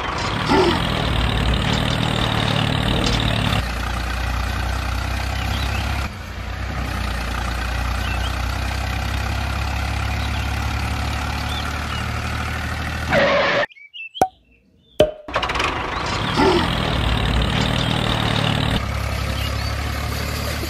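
Steady low engine hum for a miniature DIY model tractor driving over sand, shifting slightly in tone a few times and dropping out for about a second and a half about two-thirds of the way through before resuming.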